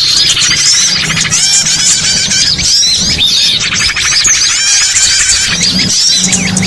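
Bird-lure recording of many small songbirds chirping and twittering at once: dense, fast, overlapping high calls with no pause, over a faint low hum.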